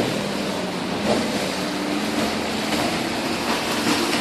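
1000-tonne static pile driver's diesel-hydraulic machinery running steadily: a low, even hum with a few faint knocks.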